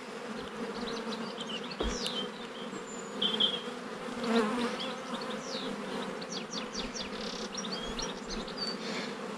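Honeybees buzzing around an opened hive, a steady hum, with a single small knock about two seconds in.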